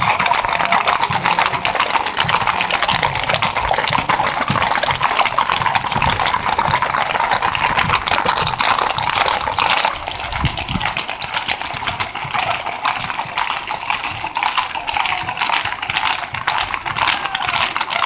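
Many horses' hooves clopping on an asphalt road in a dense, continuous clatter as a large group of riders passes. About halfway through it gets a little quieter and duller.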